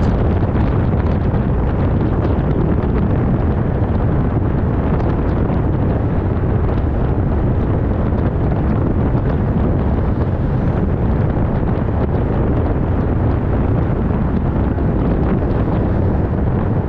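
Steady road and wind noise from a car driving along a city street, a constant low rumble with wind buffeting the microphone.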